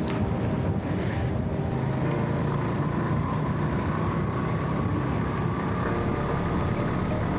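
Motorcycle engine running steadily while riding, with wind on the microphone.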